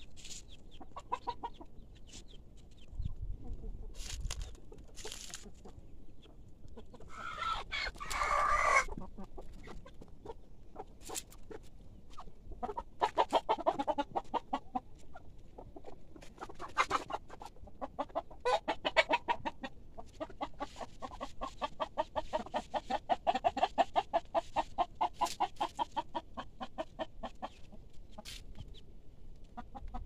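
Domestic chickens clucking, with one louder call about eight seconds in, then long runs of rapid clucks through the second half.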